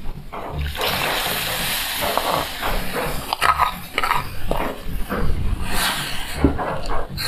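Guajillo chile salsa poured into a hot pan of frying chayote, starting a steady sizzle about a second in, with a spatula clicking and scraping against the pan as it is stirred.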